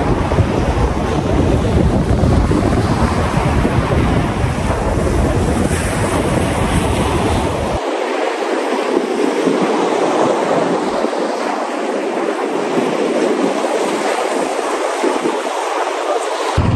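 Sea surf breaking and washing up a sandy beach in a steady rush, with wind buffeting the microphone for about the first half; the wind rumble cuts out abruptly midway.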